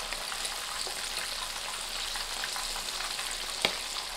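Karaage (starch-and-flour-coated chicken pieces) deep-frying in oil on medium-low heat: a steady sizzle with fine crackling, and one sharper pop near the end.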